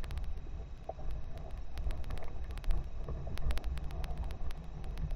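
Wind rumbling on the camera microphone as a pedal-drive kayak moves across open water, with scattered light clicks.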